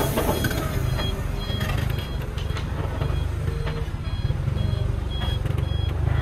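Sinotruk concrete mixer truck reversing: its reversing alarm gives short high beeps about twice a second over the steady low rumble of its diesel engine.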